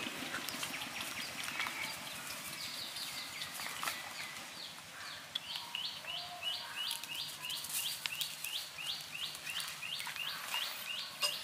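A high chirping call repeated about three times a second, each short note dropping in pitch, starting a few seconds in. Faint scattered clicks run underneath, from cats eating off a paper plate.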